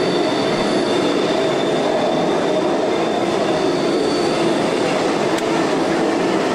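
The ride's subway-style train running in the dark: a steady rolling rumble with a thin high whine, part of which fades about four seconds in.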